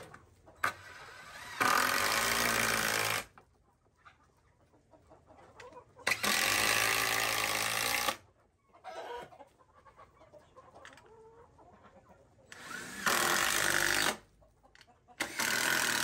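Cordless drill driving screws into a wooden board, running in four separate bursts of a second or two each, a few seconds apart.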